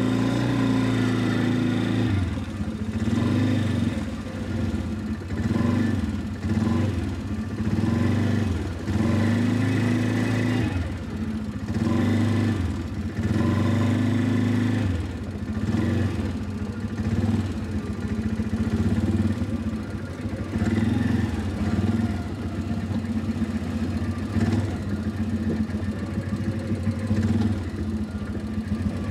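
Quad bike (ATV) engine working under load while towing a trailer over a rough snowy track, its engine speed rising and falling over and over as the throttle is opened and eased.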